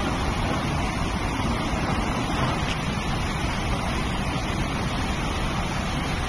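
Floodwater of a mountain torrent rushing over boulders and across a road, a loud steady rush of water.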